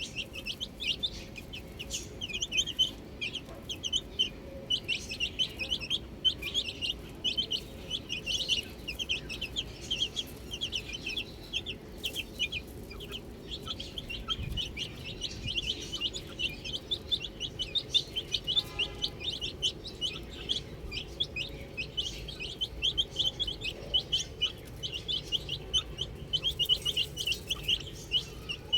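A group of baby chicks peeping without pause: many short, high calls that slide downward, overlapping one another.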